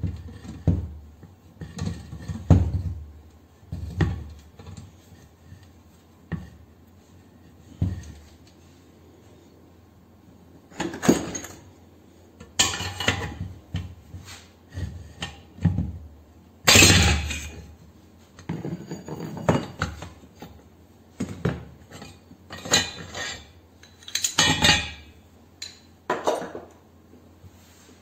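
Socket ratchet turning a gear puller to draw the finned flywheel pulley off an air compressor pump's crankshaft: irregular ratchet clicks, scrapes and metal clinks. A loud metallic clatter comes about seventeen seconds in.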